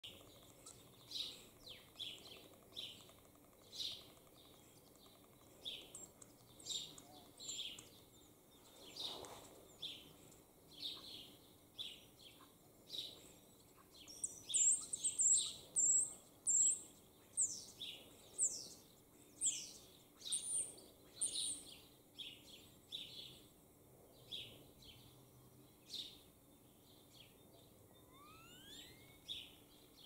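Two male European starlings singing: a near-continuous run of short chirps, clicks and whistles, with a burst of rapid high whistles around the middle, the loudest part, and a rising whistle near the end.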